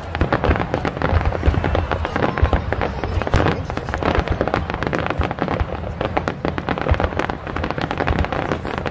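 Aerial fireworks shells launching and bursting in quick succession: a dense, unbroken run of bangs and sharp pops with no pause between them.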